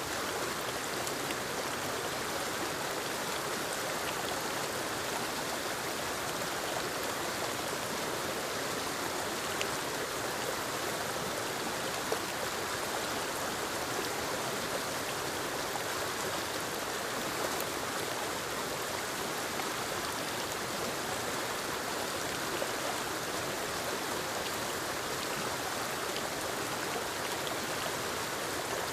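Small forest waterfall spilling over rocks into a creek: a steady, even rush of falling and running water.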